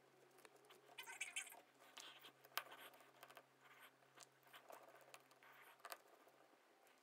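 Faint clicks and scratches of a precision screwdriver turning the tiny screws in an opened Honor 5X phone's frame, with hands handling the phone. A few sharp clicks stand out, the loudest about two and a half seconds in.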